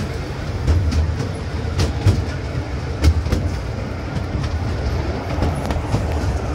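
Small tourist train running along its track: a steady low rumble with irregular sharp clacks as the wheels pass over rail joints, roughly one a second.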